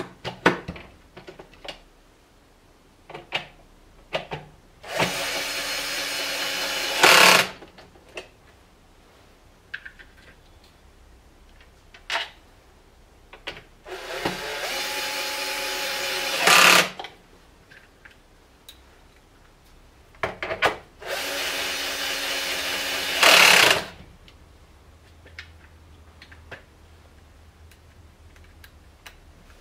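Cordless drill/driver running three times for two to three seconds each, driving screws into the bike trainer's plastic housing, each run ending in a brief louder burst. Small clicks and knocks of tools being handled come in between.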